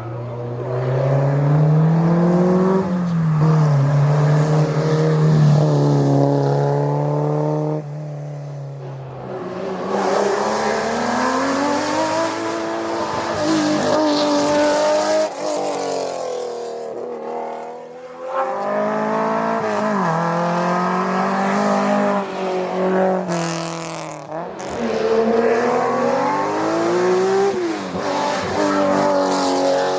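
Historic racing car engines revving hard and shifting gear, the pitch climbing and dropping again and again, in several runs broken by brief lulls.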